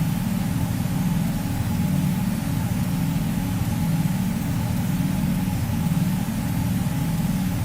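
Loud, steady low droning rumble that swells roughly once a second, with a faint higher steady tone above it: the background drone of a mock Emergency Alert System alarm.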